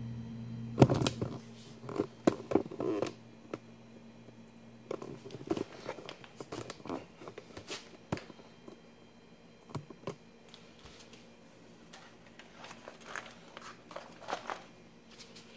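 Handling noise on a workbench: scattered knocks, clicks and rustling as the monitor chassis and board are moved by hand, the loudest knock about a second in. A low electrical hum runs underneath, strongest in the first few seconds.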